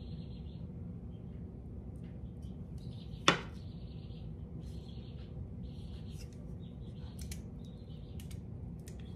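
Metal kitchen tongs handling chicken breasts on puff pastry, with one sharp clack about three seconds in, over a steady low hum. Faint high-pitched chirps come and go.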